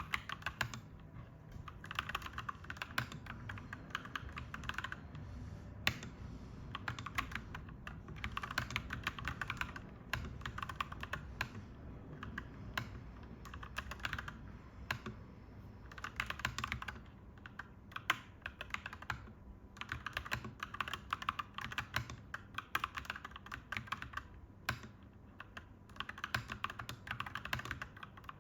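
Clacky mechanical keyboard being typed on in quick runs of keystrokes, with short pauses between the runs.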